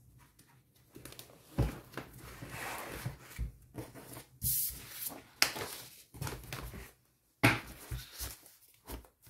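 Paper pages of a disc-bound planner being handled and pressed onto the binding discs: rustling paper with several sharp taps and snaps.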